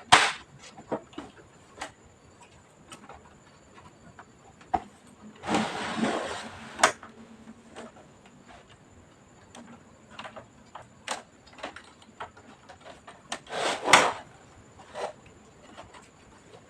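Hands working on a PC's plastic parts and tools: scattered sharp clicks and light knocks, with two louder scraping, rustling stretches, one about five to seven seconds in and a shorter one near fourteen seconds.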